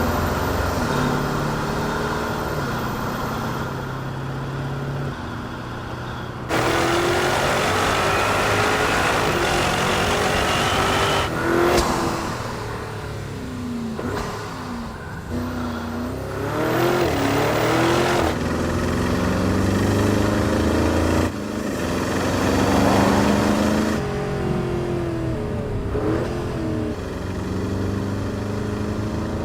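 Porsche Cayenne Turbo GT's twin-turbo 4.0-litre V8 through its titanium sport exhaust, revving and accelerating in a series of short edited clips. The engine pitch rises and falls, and the sound changes abruptly at each cut.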